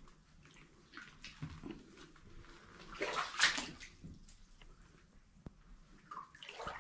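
Footsteps splashing and sloshing through shallow water on a mine tunnel floor, in irregular bursts that are loudest about three seconds in.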